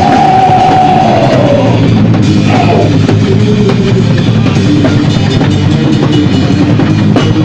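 Loud heavy rock music with a full drum kit pounding. A long held note near the start slides down and fades about a second and a half in.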